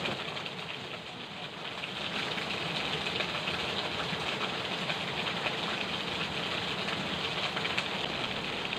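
Steady hiss of rushing water, even and unbroken, with no distinct splashes or knocks.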